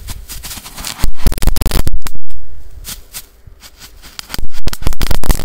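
Small firecrackers going off in rapid strings of sharp bangs: a faint crackle at first, then a loud bout of bangs about a second in and another near the end.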